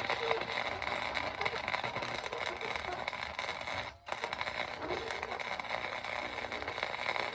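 Electric arc welding: a continuous sizzling crackle of the arc laying a bead on steel tubing, broken off once about four seconds in before the arc is struck again.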